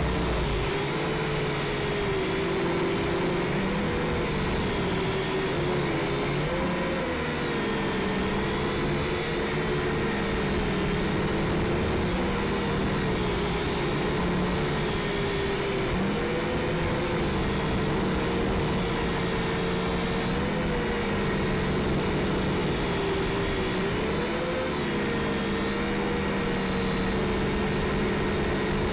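Syma X5SC quadcopter's small electric motors and propellers whining steadily, the pitch drifting up and down a little as the throttle changes.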